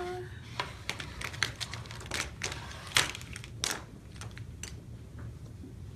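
Paper bag crinkling and rustling in irregular sharp crackles as a hand rummages in it, the loudest crackle about three seconds in.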